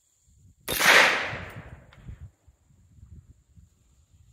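A single shot from a .30 Carbine rifle firing decades-old GI ball ammunition, about a second in. The sharp report echoes and dies away over about a second and a half.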